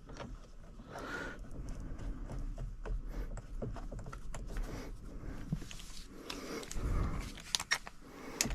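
Heavy breathing close to a chest-worn camera microphone, swelling and fading every second or two, with scattered light clicks of a hex tool and bolt being handled.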